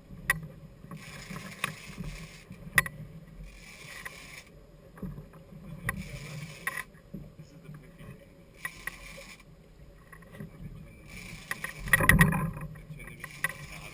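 Twin outboard motors running with a steady low hum under repeated spells of hissing and clicking every couple of seconds as a big-game reel is wound in during a marlin fight. A louder knock and rush comes about twelve seconds in.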